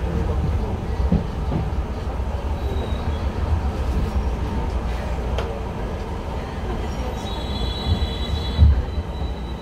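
Enshu Railway 2000 series electric train heard from the cab as it moves off along the line: a steady low rumble of wheels and running gear with a few knocks. Near the end a high thin squeal joins in and a heavy thump comes as an oncoming train passes alongside.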